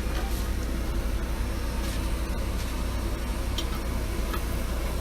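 Steady low machine hum with hiss from dental-office extraction equipment running, with a few faint clicks.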